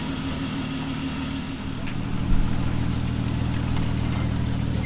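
An off-road vehicle's engine running at a low, steady note that deepens and grows louder about two seconds in, with one sharp thump just after.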